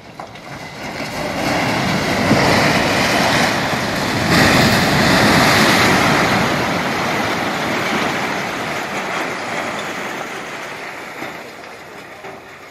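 A multi-storey concrete building collapsing: one long, loud crash of falling concrete and masonry. It builds up over the first two seconds, stays at its loudest for about four seconds, then slowly fades away.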